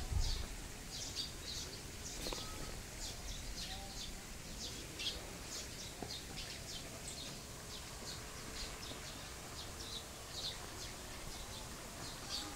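Small birds chirping, a steady run of short high chirps several times a second, over a faint low rumble of outdoor ambience.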